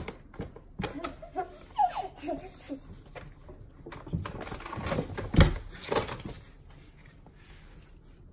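A baby laughing and squealing in short bursts, with a few loud knocks and thumps about five to six seconds in.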